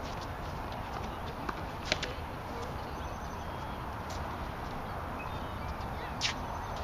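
Tennis balls being struck and bouncing on a hard court: a sharp pop about two seconds in, a few fainter knocks, and another sharp pop near the end, over a steady background hiss.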